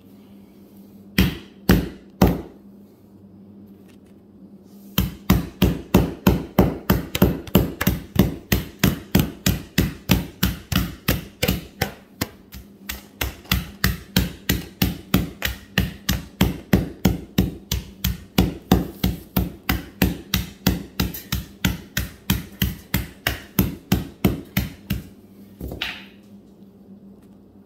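Rubber mallet pounding lump charcoal wrapped in a cloth T-shirt on a concrete floor, crushing it into small pieces. Three blows, then a long steady run of quick blows, about two to three a second, that stops shortly before the end.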